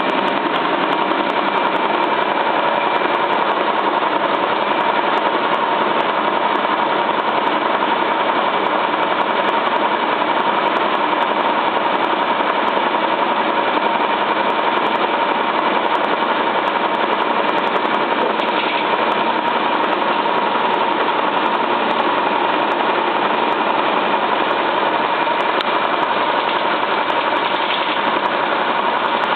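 Cylinda 12002 washing machine in its final spin, the drum turning at steady speed with a constant loud rattling, knocking noise and a steady whine. It sounds as if something were stuck inside the drum, though nothing was found in the inspection pocket.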